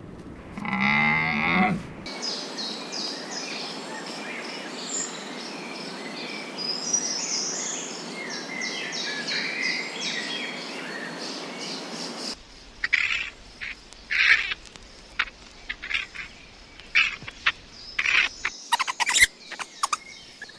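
A cow moos briefly. Then comes about ten seconds of birds chirping over a steady hiss. After that, a run of short, sharp chirping calls and clicks gets quicker toward the end.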